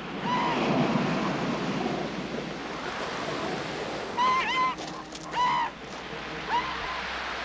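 Surf washing and breaking in a steady rush. Short high calls sound over it: one near the start, two louder ones about four and five seconds in, and a fainter one near six and a half seconds.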